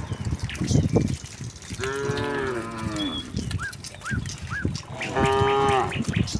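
Cattle mooing twice, each moo about a second long, with a few short high chirps in between.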